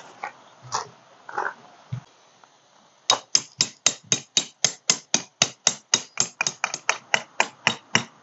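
A hammer striking rapidly and evenly, about four sharp blows a second, starting about three seconds in.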